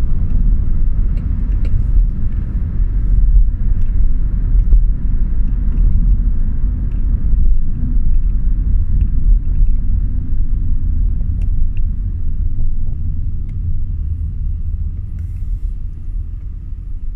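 Low, steady rumble of a car's engine and tyres heard inside the cabin while driving. It grows quieter near the end as the car slows for a red light.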